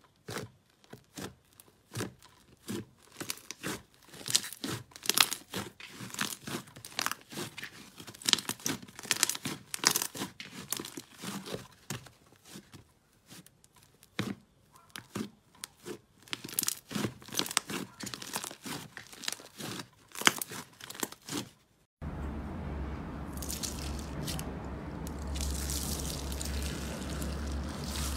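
Fingers pressing and poking soft slime, making a dense, irregular run of sharp little pops and crackles. About three-quarters of the way through, this gives way to a steady low hum with faint squishing and clicking as a hand works clear slime packed with small beads.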